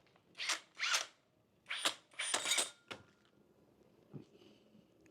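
Dekton 100 Nm drill's motor blipped in short bursts: about five quick spin-ups and run-downs in the first three seconds, then a single click.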